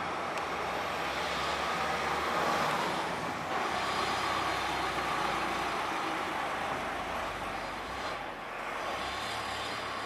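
Steady background noise of road traffic, swelling a little about three and a half seconds in and dipping briefly around eight seconds.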